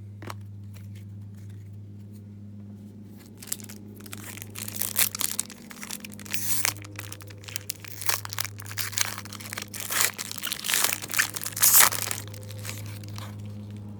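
Foil trading-card pack wrapper being torn open and crinkled by hand, in a run of ripping, rustling bursts over several seconds, the loudest near the end. A steady low hum runs underneath.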